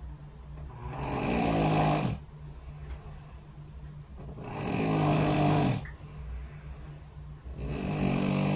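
A person snoring as captured by a bedside snore-recording app: three long, loud snores about three and a half seconds apart, each swelling up and then stopping, over a steady low hum.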